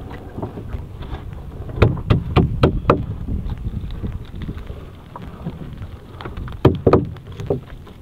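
A fishing net being hauled aboard a small boat by hand: a quick run of about five sharp knocks a couple of seconds in and a few more near the end as the net and its gear strike the hull, over a steady low rumble of wind and sea.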